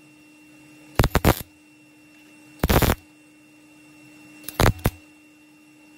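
Wire-feed (MIG) welder laying three short stitch welds on thin body sheet metal, each a crackling burst of about half a second, over a faint steady hum.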